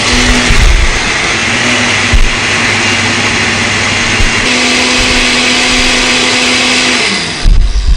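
Kitchen blender running at full speed, puréeing cooked tomatillos, garlic and serrano chile into a green salsa. About seven seconds in the motor winds down and stops, followed by a few low thumps.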